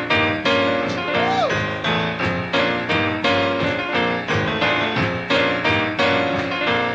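Background music: a steady run of struck notes, about two or three a second.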